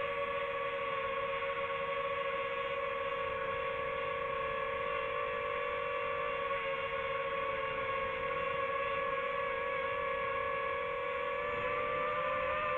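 Drone hovering, its propellers giving a steady whine with two strong held tones that waver slightly in pitch.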